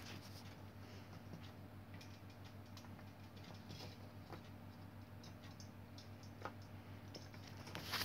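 Faint small clicks and scratches of hands handling a hair dryer's wires and parts, over a low steady hum.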